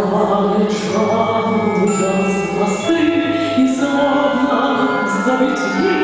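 A woman singing a song into a microphone, amplified through PA loudspeakers, with instrumental accompaniment.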